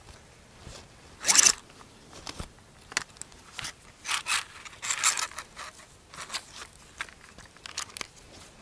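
Red tie-down strap being handled and worked: a series of short raspy zips and scrapes as the webbing and buckle are pulled, the loudest about a second in.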